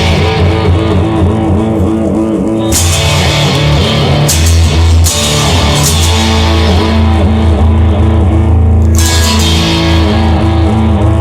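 Instrumental rock intro with guitar over bass and drums, no singing. Sharp accents that ring off come about three, four, five and nine seconds in.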